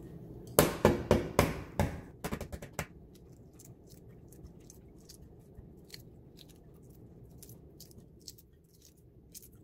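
Shell of a boiled egg cracking: a quick run of sharp cracks for about two seconds, then faint crackling ticks as the broken shell is peeled off.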